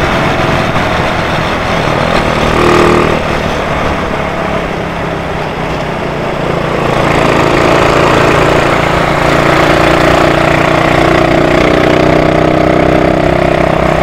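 Motorcycle engine running while riding, with steady road and wind noise over it; the engine eases off about four seconds in and picks up again a few seconds later.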